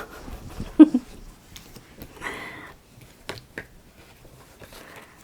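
Oracle cards being handled and shuffled: scattered soft clicks and rustles, with one louder short knock about a second in.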